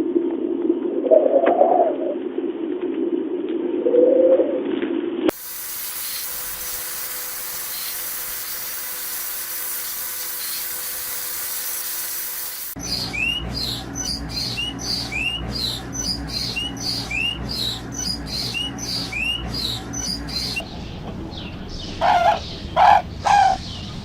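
Several separate bird recordings, one after another. First a pigeon or dove cooing in low, repeated swells for about five seconds. Then a steady hiss with a faint hum. Then a small bird chirping in quick, high, sweeping notes about twice a second. A few loud calls start near the end.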